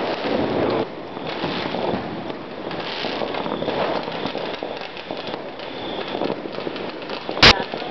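Fireworks going off: a steady mass of distant popping and crackling, with one loud sharp bang near the end.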